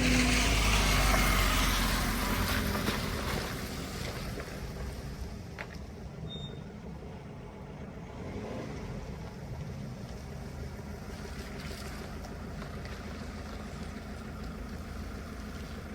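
Vehicle engine running with road and wind noise, loudest in the first few seconds, then settling to a steady drone.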